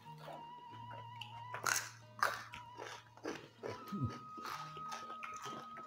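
Close-miked biting and crunching with chewing, several sharp crunches a second or so apart, from eating raw vegetables and salted fish.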